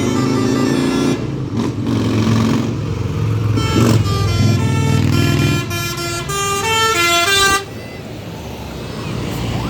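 A bus's basuri multi-tone air horn playing a tune of quick stepping notes, which cuts off abruptly about two seconds before the end, over the low running of the bus engine.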